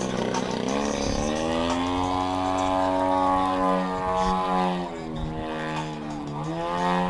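A radio-controlled model airplane's engine and propeller running in flight, the pitch climbing over the first few seconds, then falling slowly and dipping before rising again near the end as the throttle and the plane's path change.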